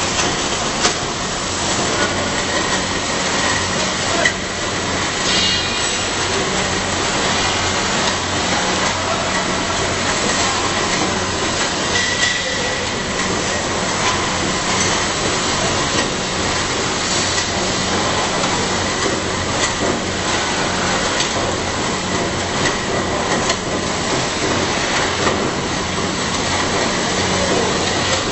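Screw conveyor running while carrying sand up its tube and pouring it from the discharge spout: a steady, loud mechanical running noise with a low hum underneath and a few small knocks.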